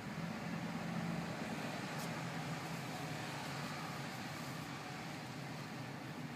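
Steady road noise heard inside a moving car: engine hum and tyre noise on a wet road.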